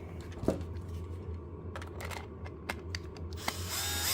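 Light clicks of a small plastic remote control being handled. Near the end, a cordless screwdriver's motor whines up to speed and runs, undoing the screw on the battery-compartment cover.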